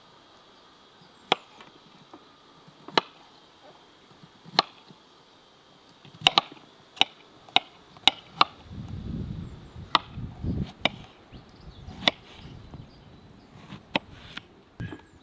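Kitchen knife slicing eggplant on a wooden cutting board: single sharp knocks of the blade hitting the board, a second or two apart at first, then a quicker run of cuts. A low rumble comes in for a couple of seconds midway.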